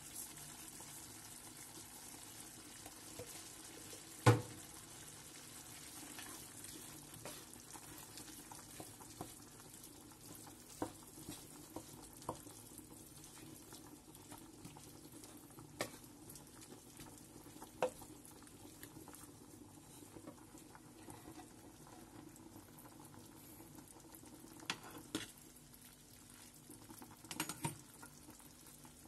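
Ground meat and onions sizzling quietly in a frying pan as a wooden spoon stirs them, with occasional sharp knocks and scrapes of the spoon against the pan, the loudest about four seconds in.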